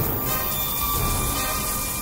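Film score music with a steady crackling hiss over it, the electric sound effect of a lightning sword.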